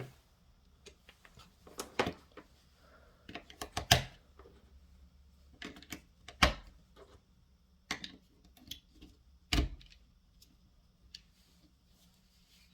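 Batteries being loaded into a Black Diamond Storm 450 headlamp: a series of sharp plastic clicks and clatters, irregularly spaced, as the cells go into the battery compartment and the new latch is closed.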